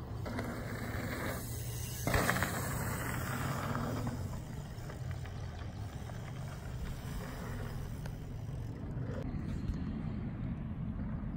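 Wind rumbling on the microphone, with the hiss of bicycle tyres rolling over a dirt jump track for the first few seconds and a single sharp knock about two seconds in.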